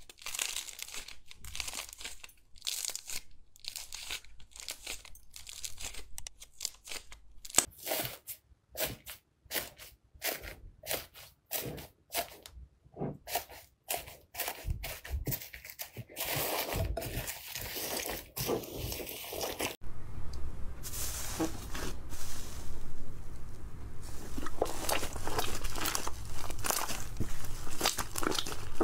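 Hands squishing, stretching and kneading slime, giving a run of sharp crackles, pops and crunches, part of it from slime packed with foam beads. About two-thirds of the way through there is a cut to denser, almost continuous crackling as a soft white slime is squeezed in a bowl.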